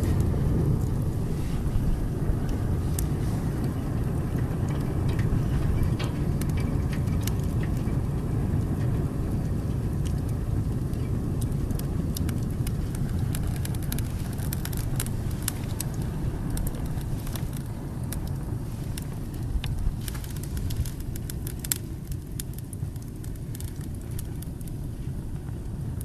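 Wood fire burning on a fireplace grate: a steady low rumble of flames with frequent sharp crackles and pops, busiest around the middle.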